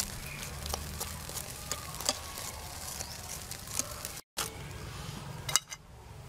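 Whole climbing perch sizzling and crackling on a wire grill over a charcoal stove, with irregular sharp pops from the fish skin and the coals. The sound drops out for a moment about two-thirds through.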